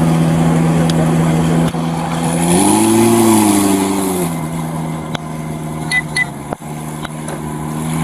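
A motor vehicle engine running with a steady hum; about two and a half seconds in its pitch rises for a second or two, as with a little throttle, then drops back. A few sharp clicks and two short high beeps come near the middle.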